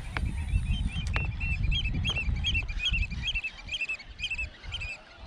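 A bird calling in a quick run of short, squeaky notes, about three or four a second, over a low rumble. There are two sharp clicks about a second apart near the start.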